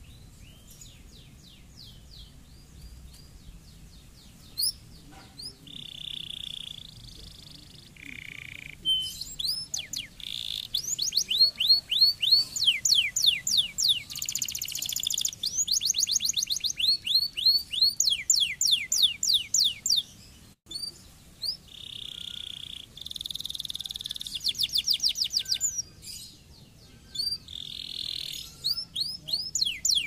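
Canary singing: scattered high notes at first, then from about nine seconds in a near-continuous song of fast trills made of rapid falling notes and buzzy rolls, broken by a short pause partway through.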